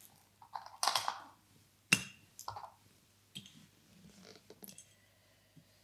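Red fraction pieces of a Montessori fraction circle set being lifted out of and set back into their green frames and laid on a carpet: a few light clicks and short scrapes, with one sharp click about two seconds in.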